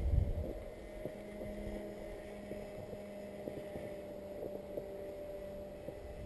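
Twin D2826-6 2200kv brushless motors spinning 6x4 propellers on a radio-controlled plane, droning steadily as it flies, with a gust of wind on the microphone near the start.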